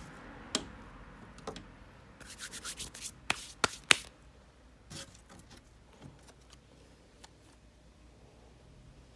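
Hands handling thin card cut-outs and a wooden stick on a tabletop: card rubbing and rustling, then a quick run of small clicks and three sharp taps a little before halfway, followed by a single knock.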